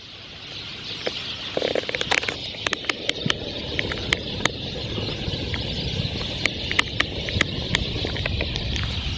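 A large flock of small birds calling together in a loud chorus: a dense, high chatter with many short, sharp notes. It swells up over the first second or two.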